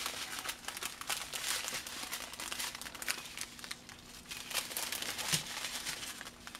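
Plastic packaging crinkling: small plastic bags of diamond painting drills and their wrapping being handled, with many quick, irregular crackles throughout.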